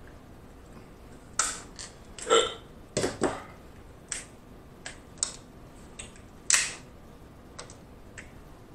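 King crab leg shell being cracked and snapped apart by hand: a string of about a dozen sharp, irregularly spaced cracks and crunches, the loudest about two and a half and six and a half seconds in.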